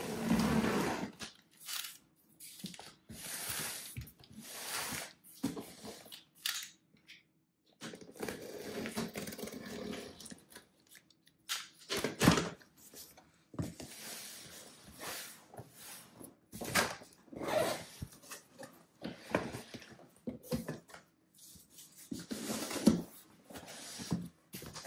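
Packing tape being pulled and torn off a cardboard shipping box, and the cardboard flaps scraping and rustling as the box is opened, in irregular bursts with a few sharp knocks.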